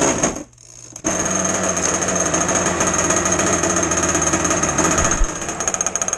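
Zenoah two-stroke gas RC boat engine starting about a second in and running steadily, with a brief dip near five seconds. Both carburettor needles are at the turn-and-a-half-out starting setting.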